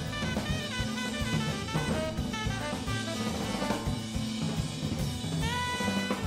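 Background music: upbeat jazz with a drum kit and horns.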